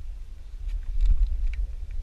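Wind buffeting the microphone: an uneven low rumble, with a few faint clicks about a second in.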